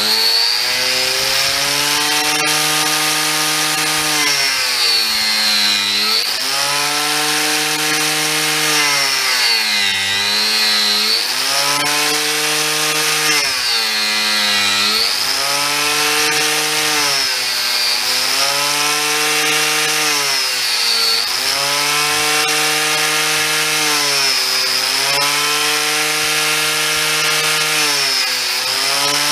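Corded angle grinder cutting into the end of a solid French oak beam. The motor's whine sags in pitch every few seconds as it bogs under load and rises again as the cut frees up, over the rasp of the cutter in the wood.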